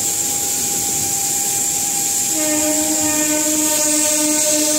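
A train's horn sounding: a steady pitched blast starts about two seconds in and holds, over the running noise of the moving train. A thinner high tone is heard before it.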